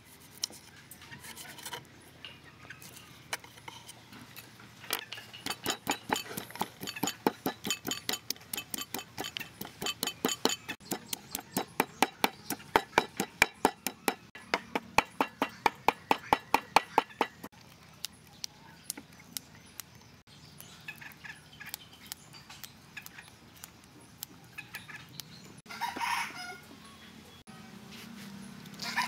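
Wooden pestle pounding garlic and chilies in a clay mortar, sharp even knocks about four a second for some twelve seconds. Near the end a rooster crows twice.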